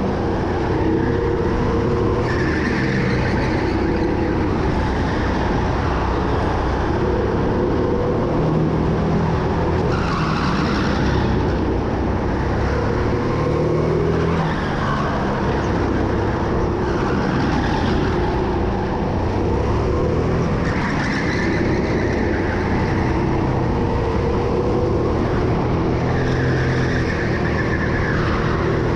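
Racing go-kart engine running hard, its pitch rising and falling as the throttle comes on and off lap after lap, with tyres squealing at times through the corners.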